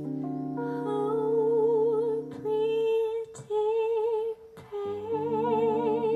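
A woman's voice singing wordless long notes with vibrato, three held notes with short breaks between them, over sustained jazz guitar chords.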